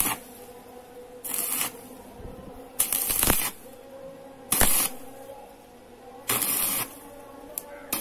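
Stick (arc) welder tacking steel with a coated rod electrode: the arc is struck four times in short crackling bursts of about half a second each, a second or so apart.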